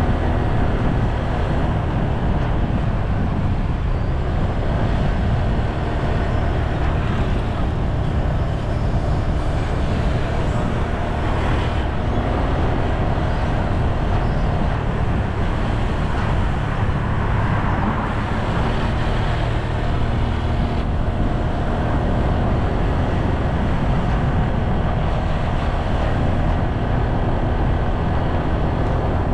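Steady, unbroken noise of a moving road vehicle: engine running with a heavy low road rumble.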